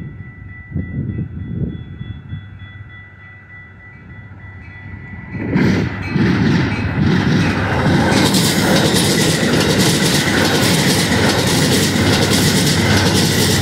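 Metra commuter train with bilevel stainless-steel cars. At first there is a quieter low rumble with a thin steady tone, then about five seconds in the sound jumps to the loud clatter of the cars passing close, their wheels clicking over the rail joints.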